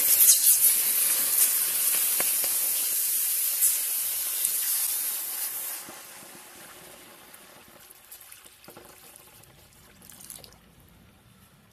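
Water pouring onto a still-hot aluminium casting in a cast-iron pan: a loud hiss and sizzle as the water flashes to steam. About six seconds in the hiss dies away as the metal cools, leaving the quieter splash of the running water.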